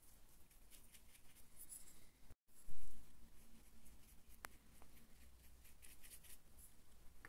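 Paintbrush stroking and dabbing a thin shade wash onto a 3D-printed statue base, a string of soft scratchy strokes. About two and a half seconds in the sound drops out briefly, then a low thump, the loudest sound; a single sharp click follows about two seconds later.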